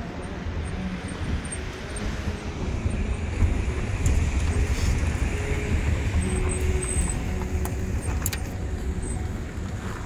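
A car driving slowly over a rough gravel road, heard from inside the car: a steady low rumble of engine and tyres, a little louder from about three seconds in, with a few sharp rattles about eight seconds in.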